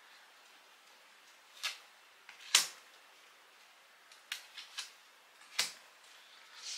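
Oracle cards being handled and laid down one at a time on a table: a scattering of short, sharp taps and slaps, the loudest about two and a half seconds in.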